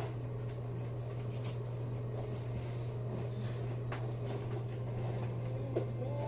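A steady low electrical-sounding hum, with a few faint clicks of handling about one and a half and four seconds in.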